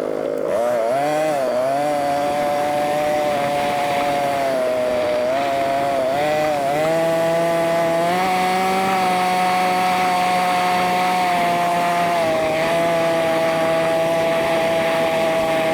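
ATV engine running under throttle, a buzzy motor note that dips and climbs again several times in the first half as the rider eases off and gets back on the gas, then holds a steadier pitch for the rest.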